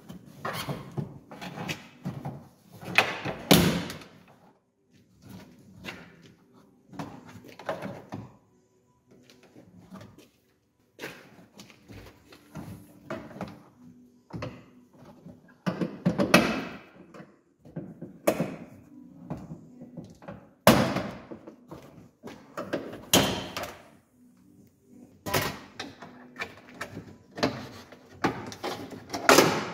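Irregular knocks, clicks and thuds of hands and a pry tool working the plastic inner trim of a Volkswagen Passat B5 tailgate, with a few louder clunks among the lighter rattles.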